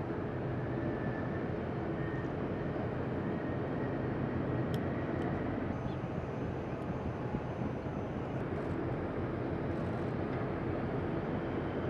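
Steady outdoor background rumble and hiss, even throughout, with no clear single source.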